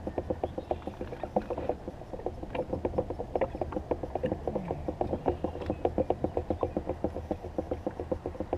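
River water slapping against the hull of a small Beavertail boat, a quick, uneven run of small knocks, several a second, over a low steady rumble.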